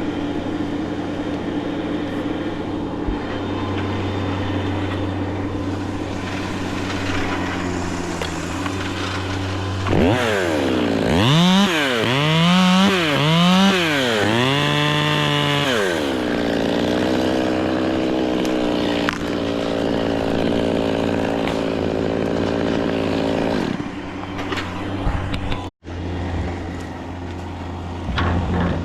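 Chainsaw engine running steadily, then revved up and down three times in quick succession before settling back to a steady run. The sound cuts out briefly near the end.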